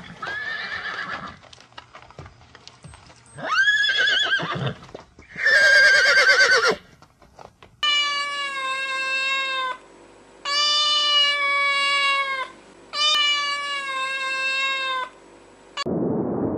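A horse whinnying in short calls that waver in pitch, three times in the first half. It is followed by a cat giving three long, drawn-out meows of about two seconds each, falling slightly in pitch. A steady hiss starts near the end.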